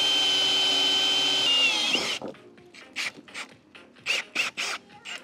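Cordless drill running a hole saw through a pressure-treated wooden board, a steady whine that sags in pitch and stops about two seconds in. Then a few short knocks and clicks follow.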